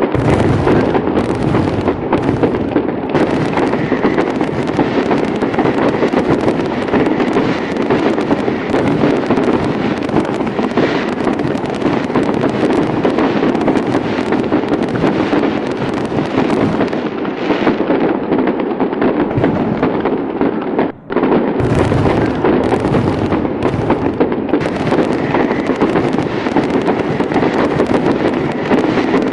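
Dense fireworks barrage: many bangs and crackles overlapping without a break, with a split-second cut-out about two-thirds of the way through.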